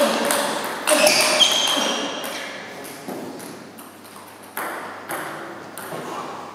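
Table-tennis ball clicking back and forth off rubber paddles and the table in a fast rally, each hit ringing on in the hall. The rally stops about two seconds in, and a new exchange of hits starts about halfway through.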